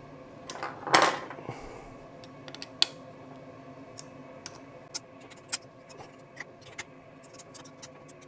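Metal rotary-table parts and hand tools handled on a workbench: a louder clatter about a second in, then scattered light clicks and clinks.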